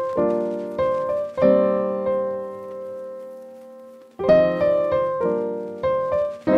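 Background music: piano chords struck one after another, with one chord held and left to fade for a couple of seconds in the middle.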